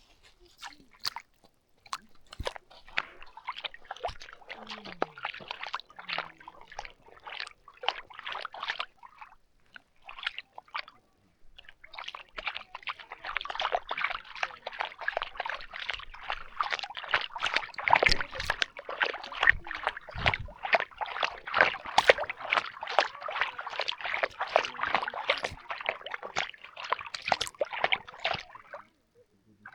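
Water splashing and sloshing as a dog moves through it, in quick irregular splashes close by. There is a short lull about ten seconds in, and the splashing is heavier from about twelve seconds on.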